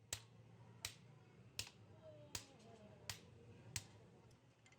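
Six sharp, faint taps at an even pace, about one every three-quarters of a second.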